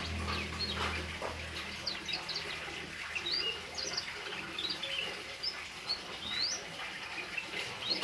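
Hill myna giving a string of short, high whistles and chirps, several of them rising sharply in pitch, over a low hum that fades out about a second and a half in.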